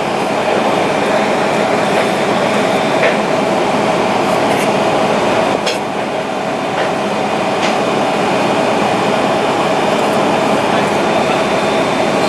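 Steady, loud rushing background noise with a constant hum and faint voices underneath.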